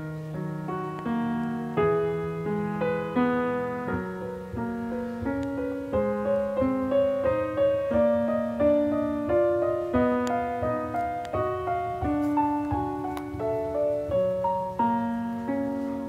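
Background solo piano music: a gentle melody of single notes, each struck and fading, over lower sustained notes at an unhurried pace.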